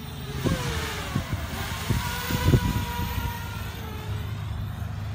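A small quadcopter drone flying past overhead, its propeller whine sliding slowly down in pitch as it goes by. Several low thumps land on the phone's microphone, the loudest about two and a half seconds in.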